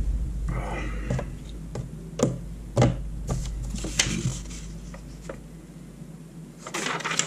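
Desk handling sounds: plastic dry-erase markers clicking as they are set down, and sheets of paper being picked up and rustled, with several separate knocks and a papery rustle near the end.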